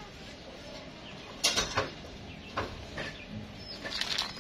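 Two wrapped candy eggs, a Kinder Joy and a yellow egg, handled in the hand, making a few short crinkling rustles of their plastic wrappers. The loudest is a quick cluster about a second and a half in, with smaller rustles after it.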